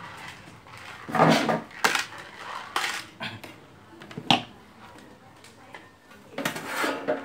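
Sheet-metal casing of a TIG welder being worked loose and lifted off its chassis: a string of metal clanks and rattles. The loudest come about a second in and again near the end.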